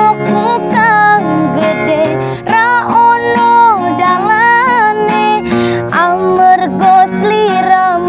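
A woman singing a slow, ornamented melody with sliding, wavering notes over a strummed acoustic guitar.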